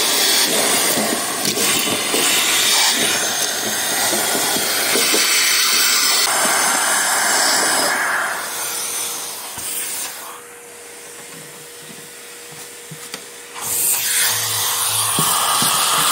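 Vacuum cleaner sucking rust flakes and dirt out of a rusted-out car cowl sill through its hose nozzle, a loud steady rushing noise. The rush drops away for a few seconds about ten seconds in, then comes back.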